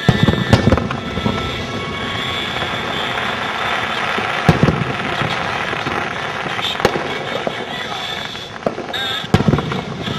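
Aerial fireworks of a city display bursting in a series of loud booms over continuous crackling. Booms come in a cluster near the start, again about four and a half and seven seconds in, and several more near the end.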